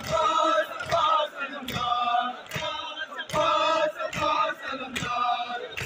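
A crowd of men chanting a mourning chant in unison, with palms slapping their chests in a steady matam beat a little faster than once a second.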